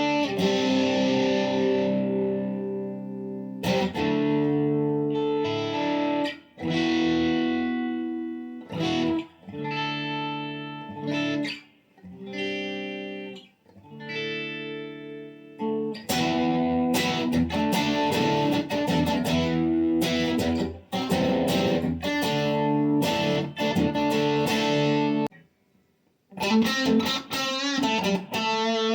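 Electric guitar with a Lollar High Wind Imperial bridge humbucker playing chords through a Blackstar ID:Core 40 amp on its crunch channel with light reverb, heard through a phone's microphone. A ringing chord is followed by a run of short, cut-off chords, then fuller strummed chords with a brief pause near the end.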